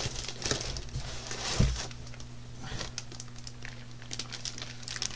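Plastic bag wrapping a new laptop crinkling and rustling as it is handled and lifted out of its box, with one dull thump about a second and a half in.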